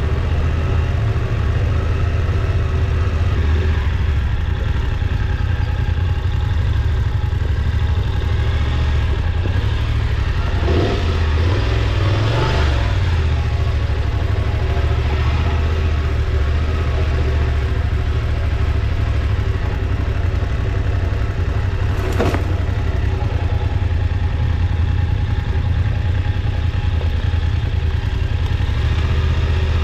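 Motorcycle engine running steadily while riding on a gravel road, with the engine note shifting briefly about a third of the way in and a single sharp knock about two-thirds of the way through.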